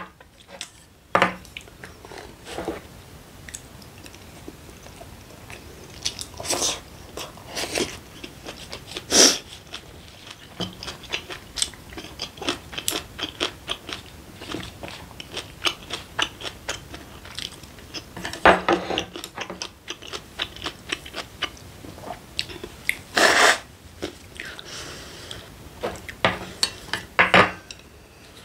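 Close-miked eating: chewing and mouth noises with many small clicks of wooden chopsticks and a spoon against the dish, and a few louder noises spread through.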